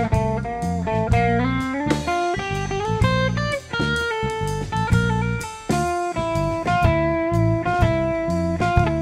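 A rock band playing an instrumental passage, with electric guitar over bass and drum kit keeping a steady beat.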